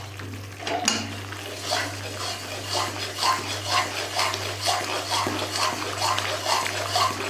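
Metal spatula scraping and stirring a thick flour-and-ghee mixture round an aluminium kadhai, in even strokes about two a second, over a low steady hum.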